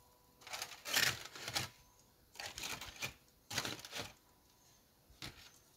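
Aluminium foil crinkling and rustling in four or five short bursts as metal tongs pull open a foil packet on a smoker grate.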